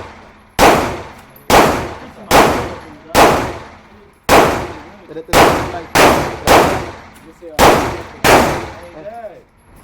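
12-gauge shotgun fire: about ten loud shots in quick, uneven succession, some only half a second apart, each with a ringing tail that dies away over about half a second.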